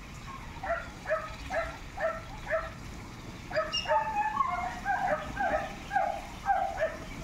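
A dog barking in short, high yaps about twice a second, then a quicker run of longer yelps from about halfway through.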